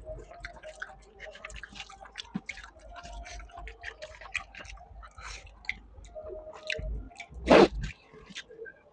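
Close-up chewing of a meal of chicken fry and rice: a run of small, quick mouth clicks, with one louder mouth sound about seven and a half seconds in.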